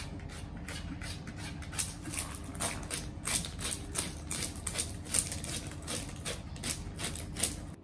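Smooth pebbles clicking and clattering against each other as a pregnant corgi digs and noses among them, an irregular run of small clacks several times a second. The digging is her restless nesting before giving birth.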